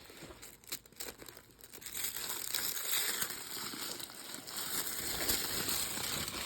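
Packaging crinkling and rustling as it is handled and unwrapped, with a few sharp clicks first and dense crinkling from about two seconds in.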